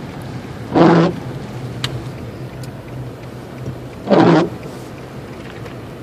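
A car driving at steady speed, its engine and road noise a low continuous hum. Two short loud bursts of noise stand out, about three seconds apart.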